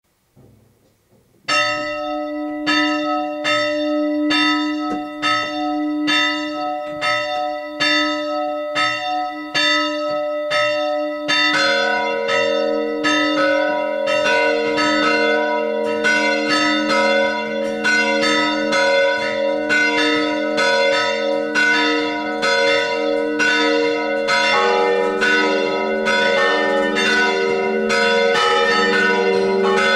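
Church bells ringing: a single bell starts tolling about a second and a half in, struck about three times every two seconds. A second, lower bell joins about a third of the way through, and a third, lower still, comes in near the end, the strokes overlapping into a continuous peal.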